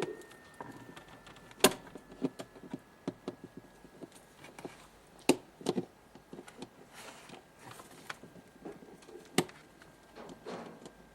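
Scattered sharp clicks and knocks of parts being handled while a refrigerator is worked on, three of them louder, about two, five and nine seconds in. A faint steady high tone runs beneath.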